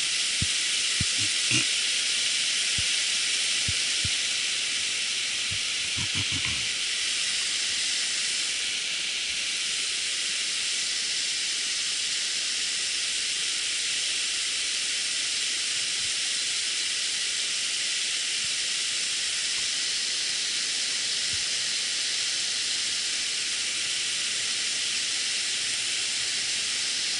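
River water rushing steadily over a small weir and between rocks, a constant hiss. A few faint low knocks sound about a second in and again about six seconds in.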